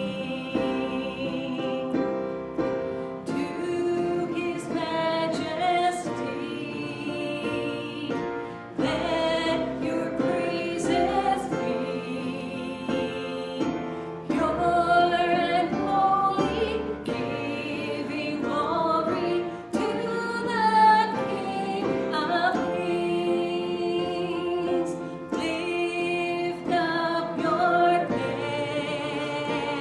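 Singing with musical accompaniment: a sustained, slow melody with held notes and vibrato.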